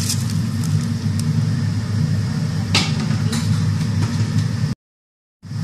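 A pot of broth at a rolling boil on the stove, a steady low rumble with a faint hiss above it and one brief sharp sound about three seconds in. The sound cuts out completely for about half a second near the end.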